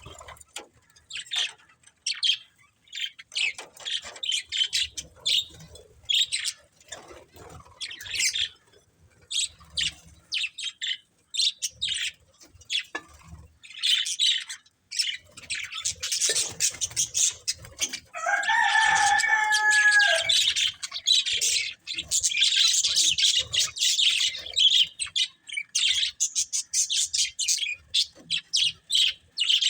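Budgerigars chirping and chattering in quick, high-pitched bursts, growing busier in the second half, with one lower, longer call about two-thirds of the way through.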